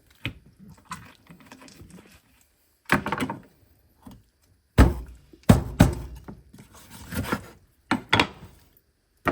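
Knife chopping through a whole chicken's leg joints on a cutting board to separate the drumsticks: a series of heavy chops, irregularly spaced, starting about three seconds in after some light handling.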